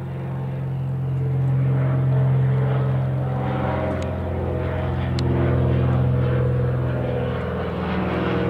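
A Britten-Norman BN-2B-26 Islander's twin Lycoming flat-six piston engines and propellers droning as it passes overhead. A steady deep hum with higher tones that drift in pitch, louder from about two seconds in.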